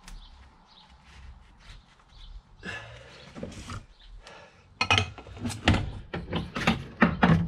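Car driveshaft and CV joint being handled on a workbench: light rustling and small clicks, then, from about halfway, an irregular run of sharp knocks and clunks as the shaft and joint housing are moved about.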